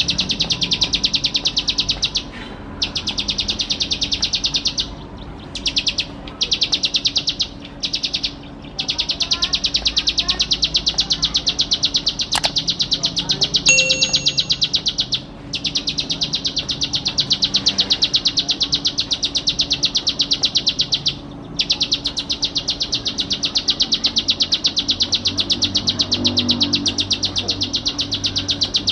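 Ciblek sawah (plain prinia) singing a fast, buzzy trill of rapidly repeated high notes. It comes in long runs of several seconds, broken by brief pauses.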